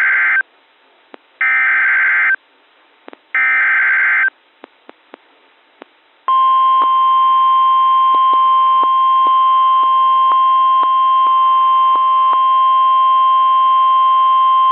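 Emergency Alert System SAME header: three short bursts of screechy digital data about two seconds apart. About six seconds in comes the National Weather Service warning alarm, one steady, piercing tone held for about nine seconds, signalling that a new weather warning is about to be read.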